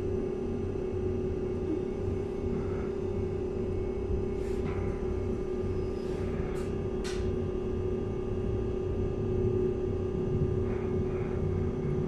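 Cabin of a LiAZ-6274 electric bus: a steady low rumble under a constant mid-pitched hum, with three short hisses between about four and seven seconds in.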